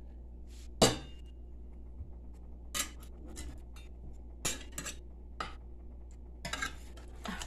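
Metal spatula clinking and scraping against a glass baking dish while lifting out cubes of set gelatin: scattered sharp clinks, the loudest about a second in and a quick run of them near the end.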